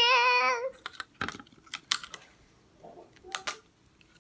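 A child sings one drawn-out word, then a scatter of light, irregular clicks and taps as hands handle tape and paper on a cardboard tube.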